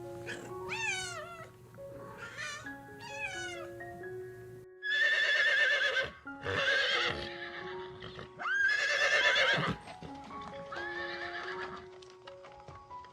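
A series of animal calls over light background music: three short gliding cries, then four long, loud quavering calls.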